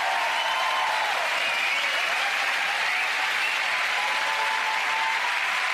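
Theatre audience applauding steadily, with a few voices cheering over the clapping.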